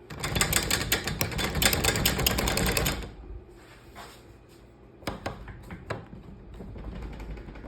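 Rapid mechanical clattering, a dense run of fast clicks lasting about three seconds, followed by a few scattered clicks and a low rumble.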